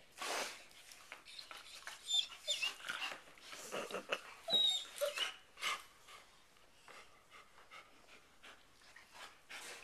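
A German shepherd licking into another dog's open mouth: wet, irregular licking and slurping with panting, and a few short high squeaks between about two and five seconds in.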